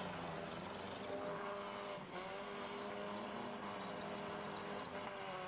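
Engines of several demolition derby cars running and revving at once, their pitches rising and falling over one another.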